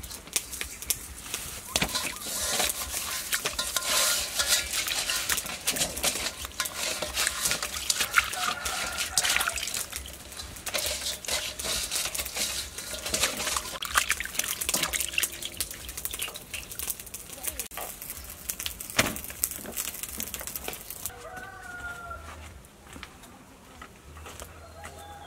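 Wet hands scrubbing a large fish with salt in a steel bowl of water: irregular splashing, dripping and slapping of the fish against water and metal. It stops about three-quarters of the way through, and a few short animal calls follow near the end.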